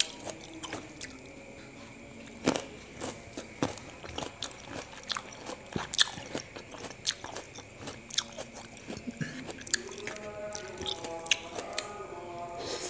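Close-miked eating sounds: wet chewing of black grapes with sharp crunchy clicks and smacks, then a bite into peeled orange segments near the end.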